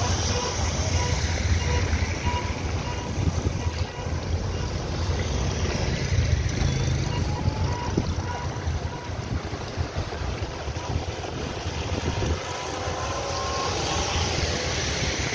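Traffic driving slowly through floodwater on a road: vehicle engines running with a steady low rumble while tyres push through the water and throw up spray.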